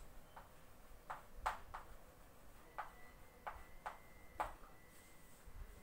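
Chalk writing on a blackboard: a string of light, sharp taps and short strokes, irregularly spaced, as a word is written.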